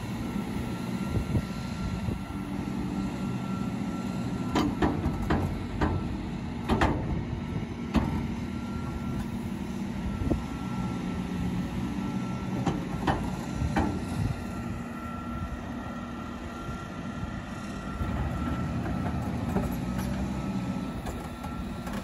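Tractor engine running steadily at low speed, with a faint steady high whine over it and a scatter of sharp knocks between about four and fourteen seconds in.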